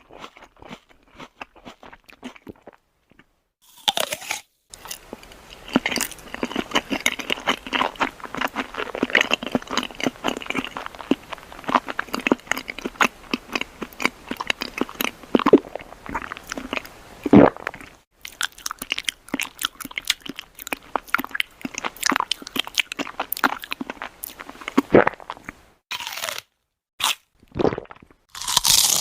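Close-up chewing and biting of crisp, crunchy food, as a run of separate eating sound effects one after another. Faint clicks at first, then dense rapid crunching from about four seconds in, breaking into short bites with pauses near the end.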